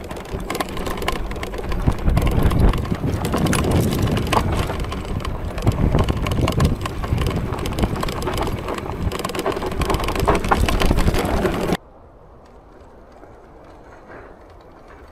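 Fat 20-inch e-bike tyres rolling over a rough dirt trail, with the bike rattling and knocking over bumps and wind on the microphone. About twelve seconds in the noise cuts off suddenly to a much quieter outdoor background.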